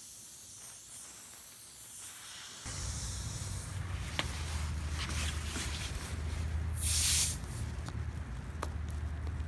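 Hiss of air escaping from a tire's nail puncture while a tire plug is readied, with a few light clicks of the plug tool. A low steady hum comes in about three seconds in, and a short, louder burst of hiss comes near seven seconds.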